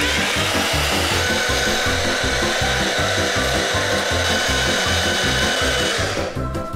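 NutriBullet personal blender motor running at full speed, blending strawberries into a smoothie: a steady whining buzz that starts sharply and cuts off about six seconds in. Background music with a steady beat plays underneath.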